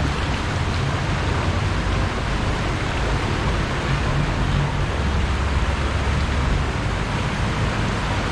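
Steady rushing noise of flowing flood water in a street, with the low hum of vehicle engines underneath.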